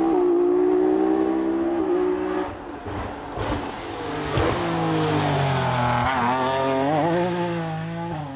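BMW 1 Series rally car's engine at high revs, dipping briefly about two and a half seconds in, then climbing and falling through gear changes, with the revs wavering quickly near the end.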